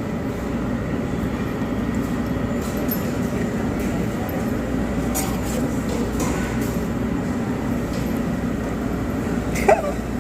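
Steady restaurant background din with a low hum, broken by a few light clinks of serving utensils against dishes and one short sharper sound near the end.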